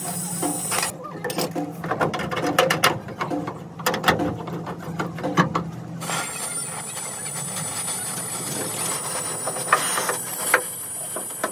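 A rapid run of mechanical clicks and knocks for about five seconds over a steady low hum. It gives way to a steady hiss-like noise with a couple of sharp knocks near the end.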